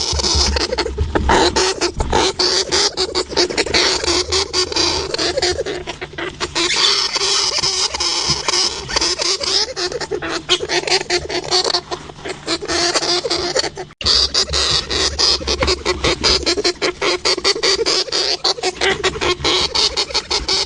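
Hamster sounds: a dense, rapid run of quick clicks, broken by a sudden cut about two-thirds of the way through, after which the same kind of sound continues.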